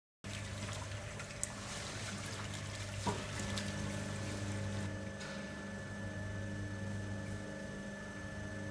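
Stainless steel batch pasteuriser running its pasteurising program: a steady low machine hum under a steady hiss, with a couple of small clicks. A thin high steady tone joins about three seconds in.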